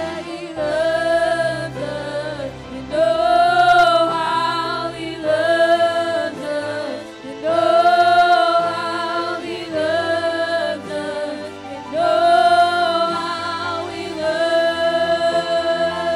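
A woman singing a worship song into a microphone, in phrases of long held notes with vibrato, over a sustained low accompaniment.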